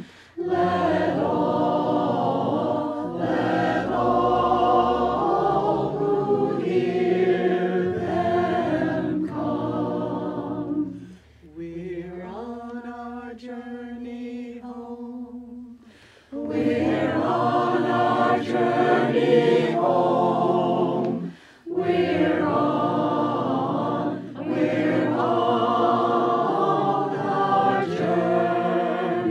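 Mixed a cappella choir singing a hymn in four-part harmony, phrase after phrase with brief breaks between them. About halfway the sound drops to a quieter passage of held notes for a few seconds before the full choir comes back in.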